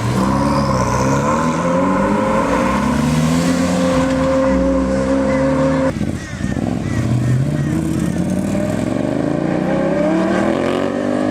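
High-performance car engine revving and pulling away, its pitch climbing and falling through the gears. It breaks off abruptly about halfway, then climbs again.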